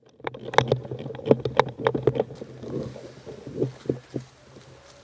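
A run of irregular sharp clicks and knocks, about ten in the first two seconds and a few more near four seconds, over a steady low hum.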